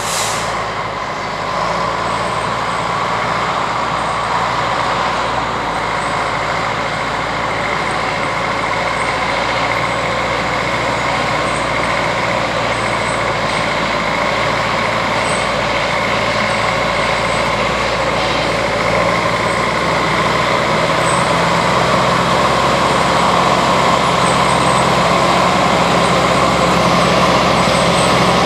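Caterpillar log skidder's diesel engine running steadily under load as the machine skids logs along a muddy trail, growing gradually louder.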